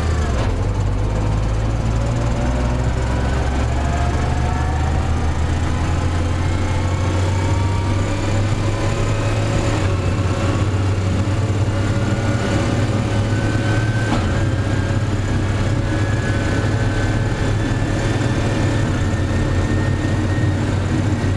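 Large farm tractor's diesel engine running steadily, with a thin whine that slowly rises in pitch over the first several seconds.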